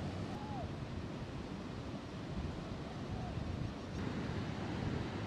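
Heavy storm surf breaking and rushing ashore ahead of a hurricane, with strong wind buffeting the microphone in a steady low rumble.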